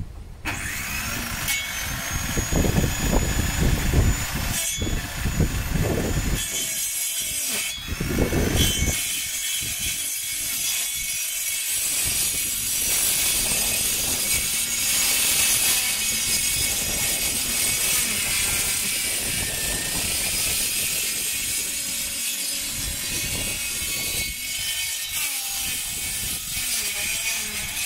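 Handheld electric circular saw running and cutting through a wooden board, a steady high-pitched whine. Low knocks come through during the first several seconds.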